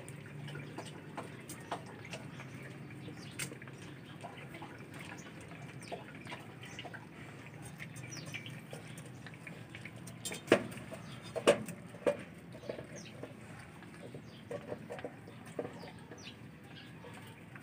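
Four-week-old Belgian Malinois puppies eating wet dog food from a stainless steel bowl: a continuous patter of wet lapping and smacking clicks, with a few sharper knocks about two-thirds of the way through.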